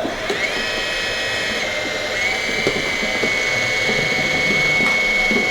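Small electric motor of an RC model construction machine running with a steady high whine, rising in pitch about half a second in and then holding, over light mechanical rattling.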